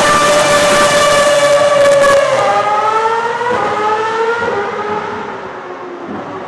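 Ferrari Formula 1 car's engine screaming at high revs as the car launches with rear wheelspin. The pitch drops at an upshift about two seconds in, climbs again, then sinks and fades as the car pulls away.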